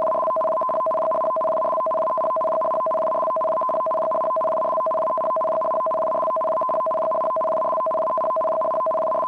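Japanese Emergency Warning Broadcast (緊急警報放送) activation signal: a rapid, unbroken warble switching between a lower and a higher electronic tone. It is the coded start signal that switches receivers on for an emergency warning.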